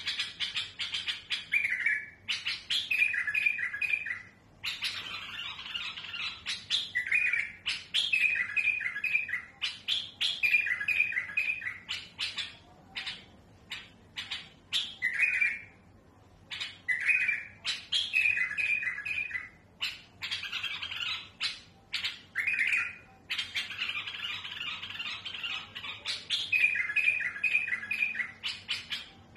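Caged bulbul singing a fluent, unbroken series of repeated phrases in a rough, harsh voice. Rasping passages alternate with quick runs of three clear notes, with short pauses between phrases.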